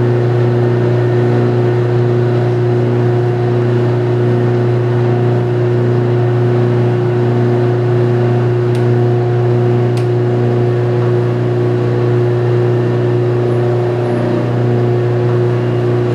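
Commercial drum coffee roaster running: a loud, steady mechanical hum of its motor and fan, with a faint regular pulse repeating about once a second.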